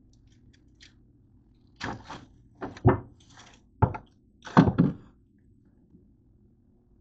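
A quick series of thunks and knocks, about six in three seconds, as things are moved about in an open refrigerator; the loudest pair comes near the end.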